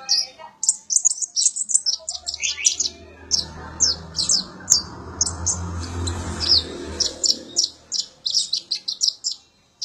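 Kolibri ninja (konin) sunbird singing: a fast, unbroken run of high, thin chirps and short down-slurred notes. A low hum sits underneath for several seconds in the middle.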